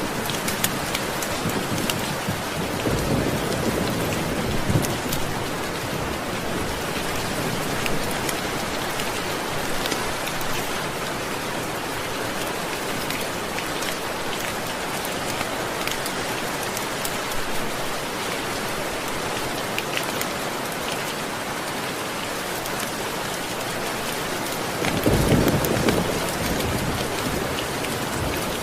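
Steady rain falling, with two low rumbles of thunder, a weaker one a few seconds in and a stronger one near the end.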